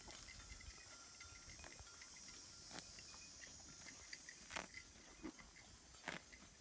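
Faint sounds of a cow grazing: a few short, sharp crunches as it tears and chews dry grass, about three, four and a half and six seconds in, over a steady high hiss.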